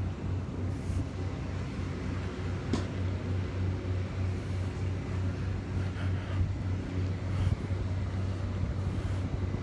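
Tanker truck's engine running steadily, a continuous engine hum over road noise.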